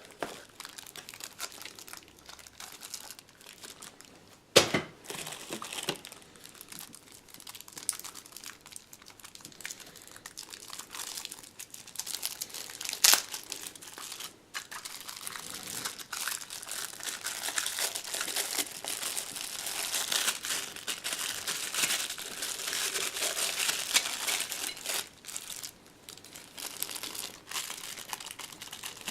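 Packaging crinkling and rustling as it is unwrapped and handled by hand, with two sharp clicks, one about four and a half seconds in and one about thirteen seconds in.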